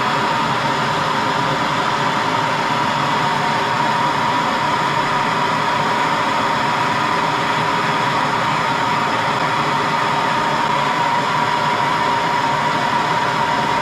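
Soldering torch flame burning steadily, a loud even hiss with a faint steady whistle, as it heats a brass and copper water fitting to sweat the solder joint.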